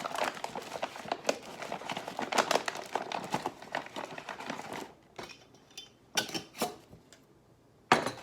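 A bag of all-purpose flour crinkling and rustling as it is handled. The crinkling is dense for about five seconds, then comes as a few separate rustles, with a louder one near the end.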